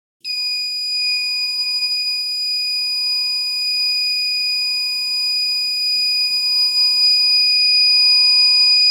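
Buzzer of a homemade laser-and-LDR security alarm circuit sounding one steady high-pitched tone: the alarm is going off. It cuts off suddenly near the end.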